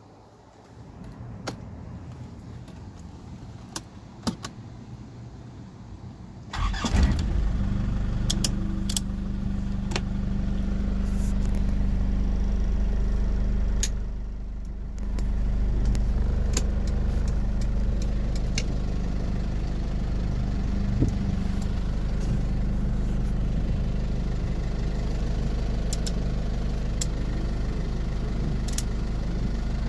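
Isuzu 4JB1-T 2.8-litre turbo-diesel starting about seven seconds in, after a few light clicks, then idling steadily. The idle dips briefly near the middle and settles again.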